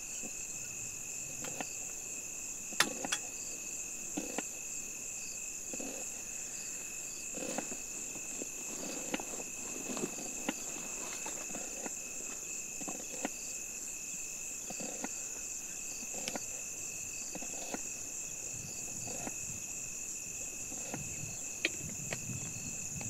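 Crickets chirring steadily in two continuous high tones. Scattered light knocks and clicks sound over it at irregular intervals, the sharpest about three seconds in.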